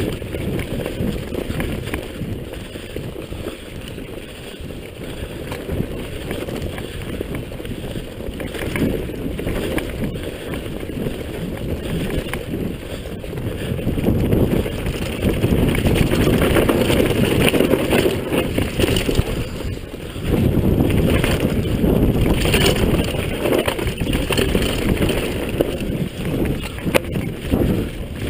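Downhill mountain bike tyres rumbling over a dry dirt trail, with the bike rattling over bumps and wind buffeting the microphone at speed. The noise grows louder about halfway through.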